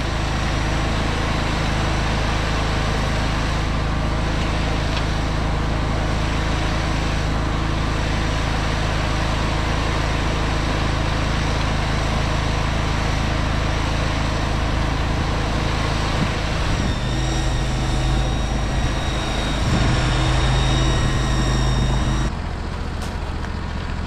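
Mini skid steer's engine running steadily as the grapple lifts and loads logs. Near the end a whine grows stronger for a few seconds, then the engine note drops sharply.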